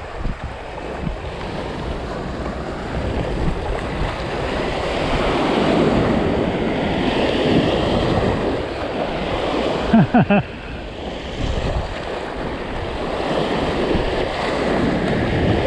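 Boat wake waves washing and surging against the shoreline, swelling and easing over several seconds, with wind on the microphone. A brief pitched sound cuts in about ten seconds in.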